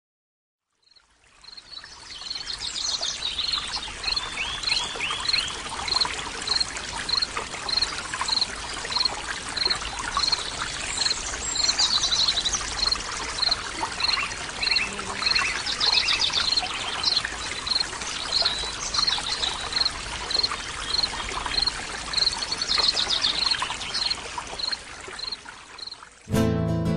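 Running water, like a stream, with birds singing: one bird repeats a short high note steadily about every two-thirds of a second, and others add scattered chirps and trills. It fades in after about a second and is cut off near the end by music.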